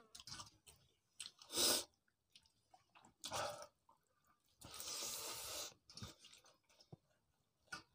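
A person eating pakhal (rice soaked in water) by hand: wet squishing of rice in water and chewing, with a few short loud mouth noises and a longer hissing rush about a second long near five seconds in.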